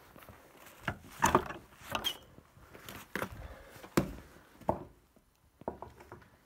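Wooden cabin door being opened and walked through: a series of sharp wooden knocks and clunks, with a brief squeak about two seconds in, then lighter taps on the plank floor.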